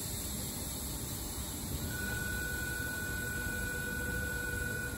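Stationary Tangara electric train standing at the platform: a steady hissing hum, with a steady high whine that comes in about two seconds in and holds.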